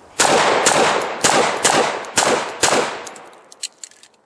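Sig 1911 pistol firing six shots at a steady pace of about two a second, each crack ringing out loudly, during a USPSA stage. A few fainter cracks follow near the end.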